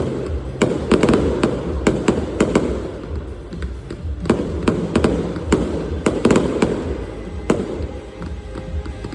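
Fireworks finale: a rapid string of sharp bangs and crackles over a continuous rumble of bursting shells. The bangs come thickest about a second in and again in the middle.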